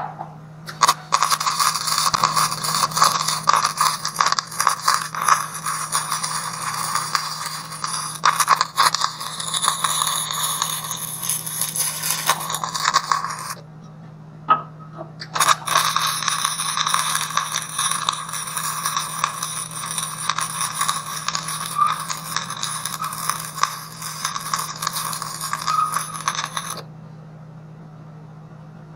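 Wire-feed (MIG) welding arc crackling and sizzling while laying weld beads on a steel tank, in two long runs of about twelve seconds each with a short pause between. A steady low hum runs underneath.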